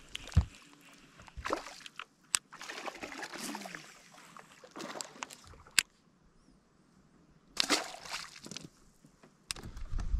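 Water sloshing and trickling against a small fishing boat's hull, in short irregular splashes, with a sharp low knock about half a second in and a few lighter clicks.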